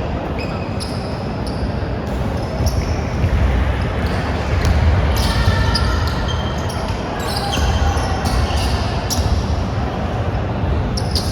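Basketball game on an indoor court: sneakers squeaking in many short, high chirps over a basketball being dribbled and a steady hall rumble.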